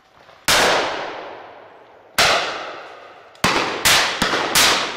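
Shotguns firing at driven pheasants: about six shots, two well spaced, then four in quick succession near the end from more than one gun, each echoing through the woodland.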